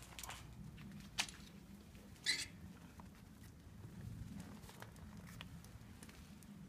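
A few sharp metallic clicks and light handling noises from a bicycle cassette and hub being worked on by hand, the clearest about a second and two seconds in, over a low steady hum.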